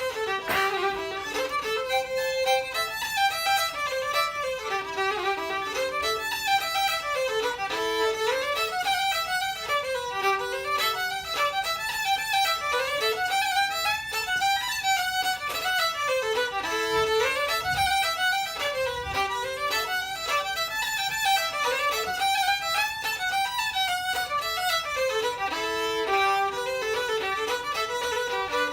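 Fiddle and tin whistle playing a traditional Irish reel together: a fast, steady run of notes rising and falling.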